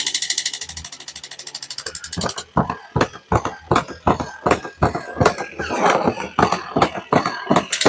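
A fast, even mechanical rattle of about a dozen clicks a second that stops about two and a half seconds in. It gives way to irregular clicks and knocks of small hard objects, and the even rattle starts again right at the end.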